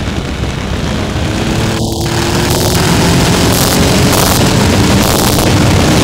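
Triumph Tiger 1050's three-cylinder engine accelerating out of a bend, its pitch and loudness rising over the first few seconds, then holding steady, with wind rushing over the microphone.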